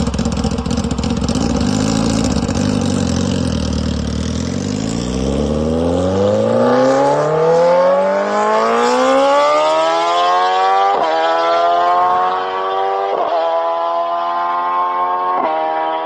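Sport motorcycle engine rumbling low, then pulling away about four seconds in and accelerating hard, its pitch climbing steadily. Three quick upshifts in the second half each drop the pitch briefly before it climbs again.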